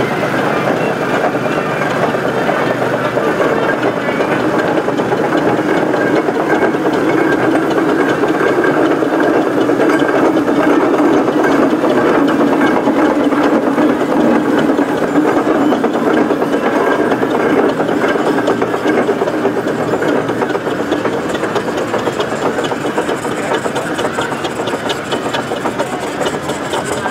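Steam traction engines running, a steady mechanical noise with no clear beat.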